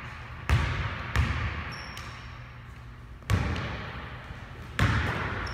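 Basketball bouncing on a hardwood gym floor: four hard bounces at uneven intervals, each with a deep thud and an echo in the hall.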